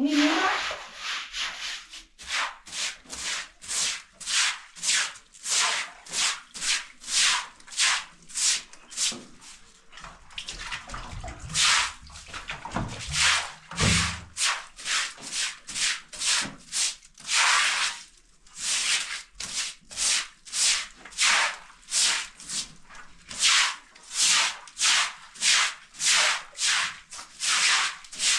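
Straw broom swishing over a wet floor in quick repeated strokes, about two a second. A brief low bump comes about halfway through as the plastic bucket is moved.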